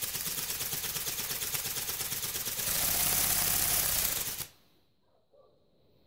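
Bionic Bird toy ornithopter held in the hand, its small electric motor driving the wings in a fast, buzzing clatter of rapid beats. It gets louder about halfway through, then cuts off suddenly as the wings stop.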